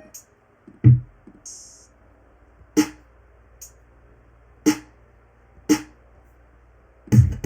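Single electronic drum sounds played one at a time from a music-production program, each a short hit spanning low thud and bright top, spaced one to two seconds apart, with a brief high hiss between the first two. Near the end a dense electronic beat with a fast, steady low pulse starts.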